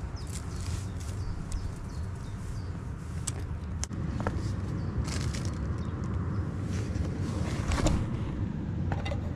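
Wind rumbling on the microphone, with rustling and scattered clicks from bags and a plastic water bottle being handled.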